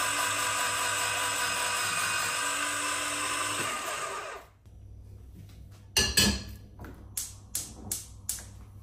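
Electric vegetable slicer running steadily as its rotating blade slices potatoes, stopping about four seconds in. A knock follows, then a few sharp clicks as a gas cooker burner knob is turned.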